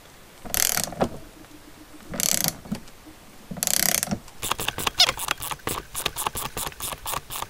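Socket ratchet tightening a motorcycle engine's flywheel rotor nut: three short bursts of ratchet clicking, then rapid, even clicking from a little past halfway.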